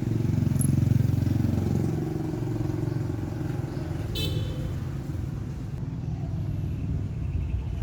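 A motor vehicle's engine running steadily, a low rumble. About four seconds in comes a brief high-pitched tone.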